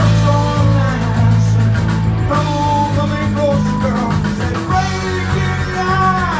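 Prog rock band playing live: a lead line bending in pitch over a steady bass line and drums.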